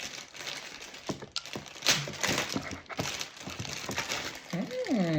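Packaging being handled: rustling and crinkling with small knocks and clicks as parts of a robot vacuum are unpacked.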